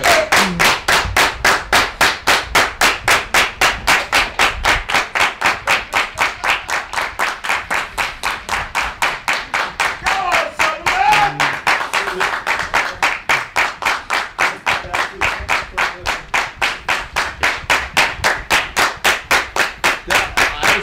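A small group of football supporters clapping in unison to a fast, even beat, with a brief shout about ten seconds in.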